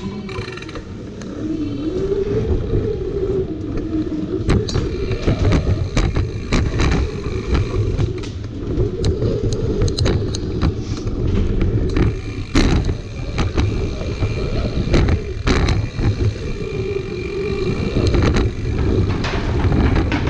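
Mountain bike ridden over concrete and wooden ladder bridges and slatted features: a steady tyre rumble with a whirring that rises and falls with speed, and repeated knocks and clatter as the wheels hit the wooden boards.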